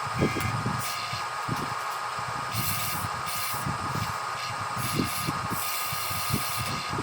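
Steady high electric-motor whine of a radio-controlled model bulldozer running, over a hiss, with irregular low knocks and clunks, a few of them louder.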